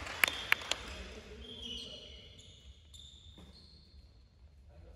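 A couple of last hand claps near the start, then a few short high squeaks of basketball shoes on the sports-hall floor, fading to the hum of a quiet hall.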